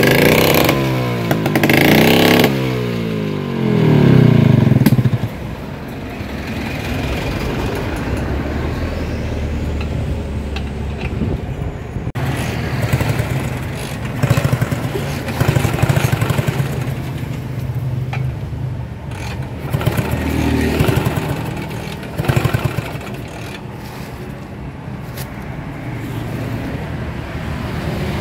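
Two-stroke Vespa scooter engines being revved hard in the first few seconds, pitch sweeping up and down, then running more steadily at lower speed with a few short blips of the throttle: an engine test before a ride.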